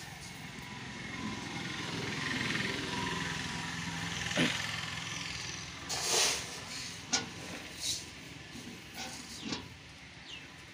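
Mahindra 585 XP Plus tractor engine idling steadily, with a rushing rustle over the first six seconds. It is followed by a few short sharp knocks around the seed drill's sheet-metal hopper.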